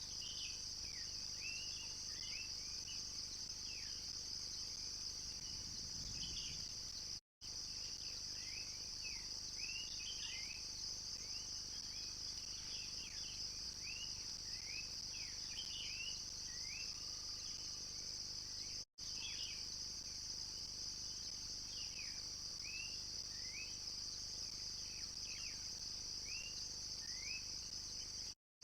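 A steady, high, shrill insect chorus, with many short falling bird chirps scattered over it. The sound cuts out completely for a moment three times.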